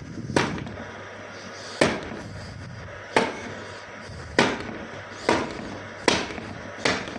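Fiskars K40 utility knife stabbed hard into a hardwood board seven times, each stab a sharp knock with a short ring, about one a second at an uneven pace.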